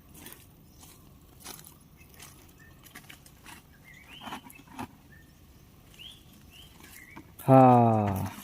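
Birds chirping faintly among scattered light taps in open grounds. Near the end comes one loud, low call lasting under a second and falling in pitch.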